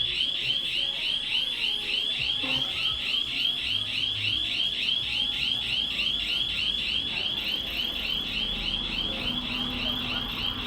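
Electronic panic alarm sounding after being set off: a high, steady warbling tone that repeats about four times a second without a break.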